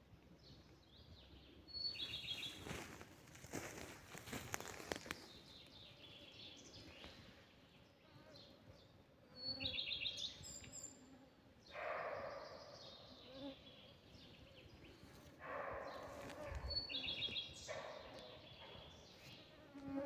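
A forest bird's strange, buzzy call, a sharp high note followed by a quick rasping run, given three times about seven seconds apart. Rustling comes in between.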